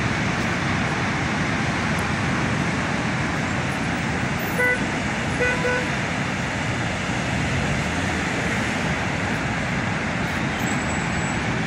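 Steady rush of breaking sea surf mixed with road traffic, with a car horn giving two short toots about halfway through.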